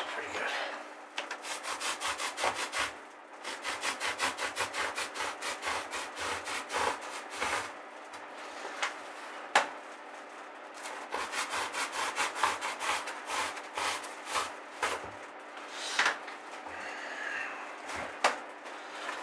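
Thick upholstery foam being cut by hand with a long blade: quick back-and-forth sawing strokes, several a second, in runs with short breaks, stopping about fifteen seconds in. A couple of single knocks follow.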